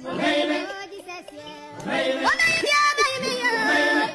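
Music with a high-pitched singing voice. The singing is choppy at first, then holds long notes with pitch glides from about two seconds in.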